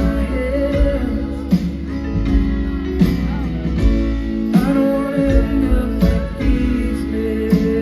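Live band music: an instrumental passage with guitars and a drum hit about every second and a half.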